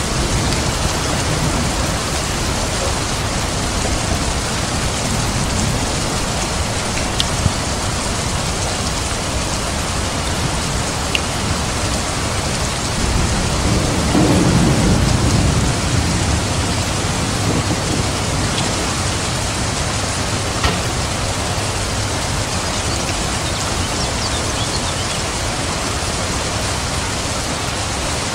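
Steady heavy rain falling, with a low rumble of thunder swelling and fading about halfway through.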